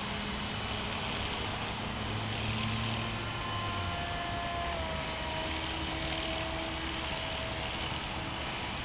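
Radio-controlled collective-pitch model helicopter in flight: a steady motor and rotor whine over a hiss, its pitch dropping slightly about halfway through as it comes down.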